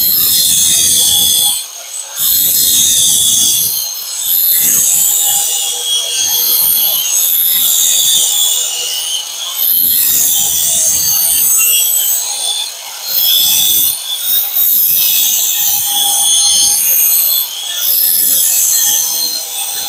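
Power tool cutting into steel stock with a harsh, steady rasp over a faint motor tone, easing off briefly every few seconds.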